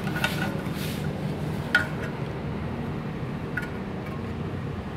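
Three light metallic clinks from the metal parts of a Singer 81A1 overlock sewing machine being handled during threading, each ringing briefly. A steady low hum runs underneath.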